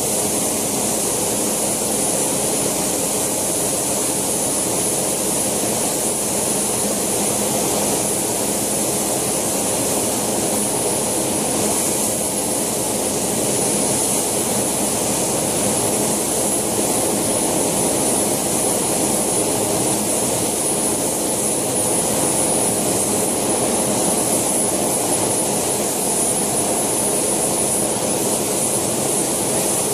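JetCat PHT2 model turboshaft turbine running steadily, with a thin high whine over a rushing jet noise, driving the rotor of a scale Alouette II model helicopter on the ground.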